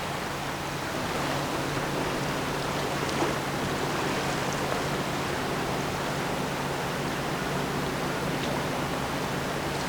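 Steady rushing wash of water with a low, steady engine hum underneath from a passing lake freighter, growing slightly louder about a second in.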